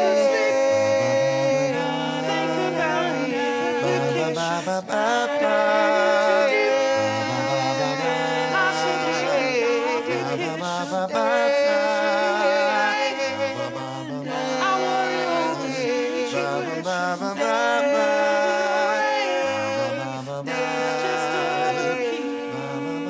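Group of voices singing a cappella in close harmony without words: sustained upper voices over a low sung bass line that repeats a rising figure about every three seconds.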